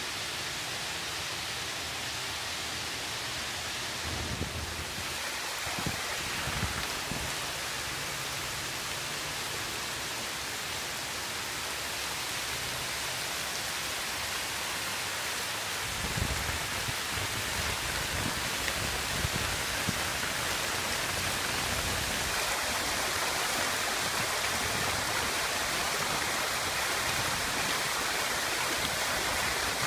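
Fountain water sheeting over a stone wall into a shallow trough: a steady rush of falling and splashing water. A few low bumps come in about four seconds in and again around sixteen seconds.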